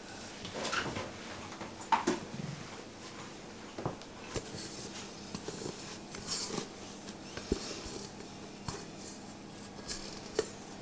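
Kitchen handling sounds as a lid comes off a bowl of risen yeast dough and the dough is tipped out onto a floured wooden board: scattered soft clicks, knocks and rustles, with one sharper click about two seconds in.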